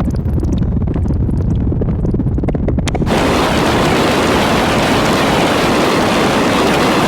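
Harsh noise from a eurorack modular synthesizer: a low, crackling rumble that about three seconds in switches abruptly to a dense, full-range wall of noise.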